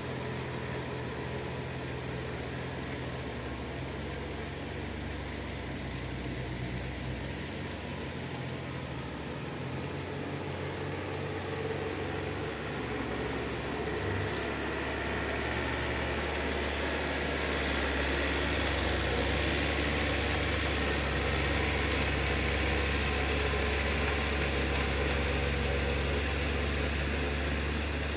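Small tractor's engine running steadily as it drags a harrow through a flooded rice paddy, growing louder a little past halfway as the tractor comes nearer.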